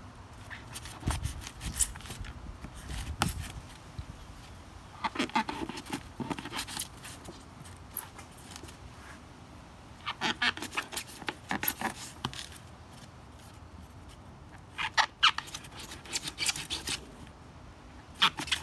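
Kitchen knife cutting the feet off a green iguana on a styrofoam cooler lid: four bouts of short, sharp crunching clicks a few seconds apart as the blade works through the foot joints.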